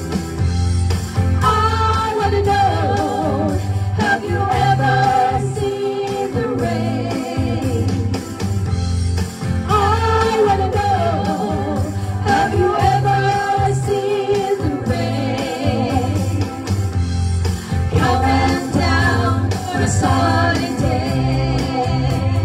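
Several women singing a pop-rock song into microphones over a recorded backing track with a steady bass beat.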